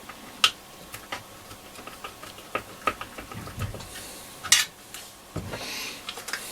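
Handling a stripped-down transistor radio chassis on a workbench: scattered small clicks, light clinks and knocks, with a soft thud about three and a half seconds in, a few sharper clicks about four and a half seconds in, and a brief rubbing scrape near the end.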